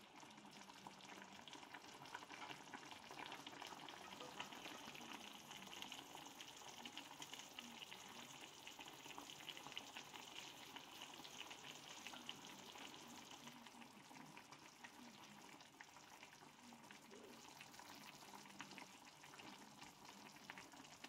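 Chicken and vegetable soup coming to the boil in a pan: a faint, steady crackle and popping of small bubbles in the broth.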